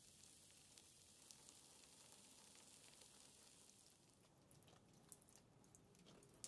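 Faint, steady hiss of water spray falling on a wooden shed roof. About four seconds in the hiss thins into separate drops pattering and ticking.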